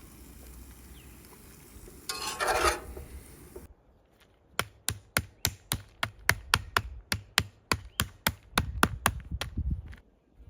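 A short rustling burst, then a rapid series of sharp knocks, about three or four a second, for some five seconds.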